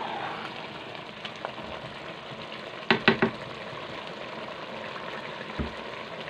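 Beef pulao rice simmering and sizzling in the last of its cooking water in an aluminium pot, stirred with a wooden spoon, as the water is cooked off before the rice is sealed to steam. About three seconds in come three quick, sharp knocks.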